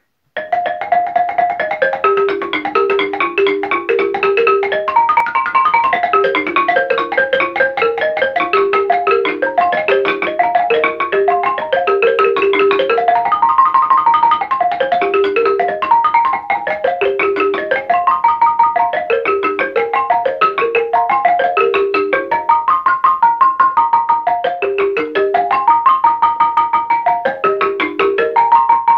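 A 12-key West African balafon, its wooden keys struck with mallets in a fast stream of notes. The melody runs in repeating phrases that climb and fall again.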